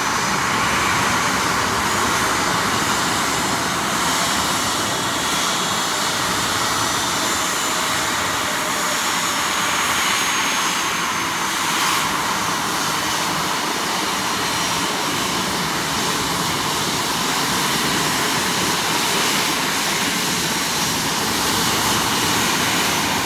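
Boeing 737 turbofan engines running steadily as the airliner taxis and turns on the apron: a constant rushing noise with a faint high whine over it.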